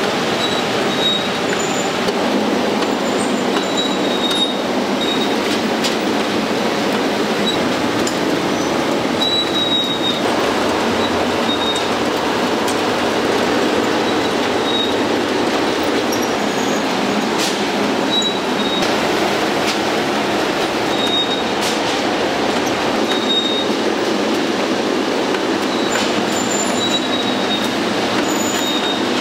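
Steady mechanical running noise with short high squeaks coming irregularly, a dozen or so times.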